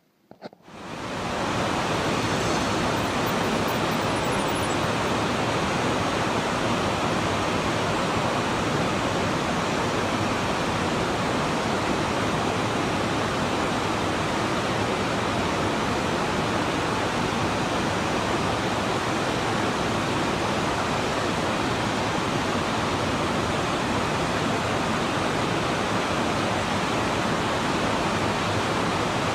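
Steady, even hiss of heavy rain, fading in about a second in and then holding at a constant level.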